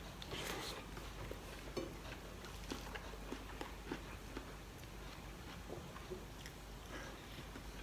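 Faint chewing and wet mouth clicks of a person eating rice and steamed vegetables by hand, in small irregular smacks, a little louder about half a second in.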